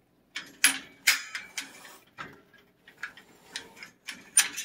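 A cat hissing and spitting in a string of about eight short, sharp bursts, the loudest about half a second and a second in: a hostile warning from a feral cat.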